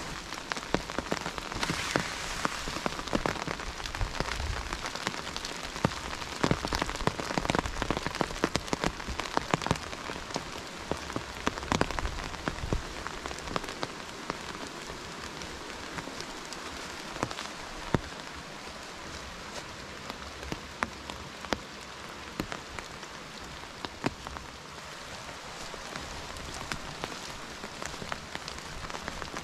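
Rain falling, with many irregular sharp drop ticks close by over a steady hiss; the ticks come thickest in the first dozen seconds and thin out after.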